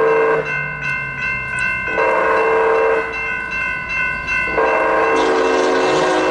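Union Pacific freight locomotive's air horn sounding the long-long-short-long grade-crossing signal: a long blast ends about half a second in, a short blast of about a second follows at two seconds, and the final long blast starts about four and a half seconds in. The crossing's warning bell rings steadily underneath.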